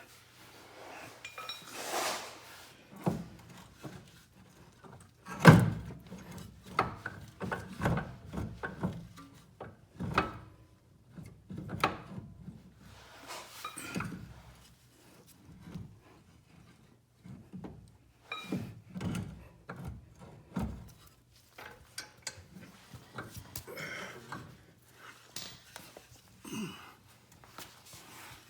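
Irregular knocks, thunks and light clinks of metal parts being shoved and worked by hand as a front drive axle is manoeuvred into the hub and strut. The loudest clunk comes about five and a half seconds in.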